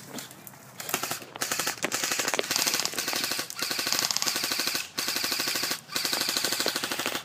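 Airsoft gun firing on full auto: long strings of rapid shots starting about a second in, broken by four short pauses.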